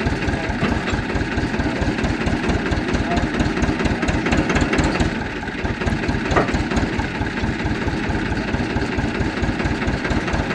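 Tractor diesel engine idling steadily with an even low pulse, and a single short click about six seconds in.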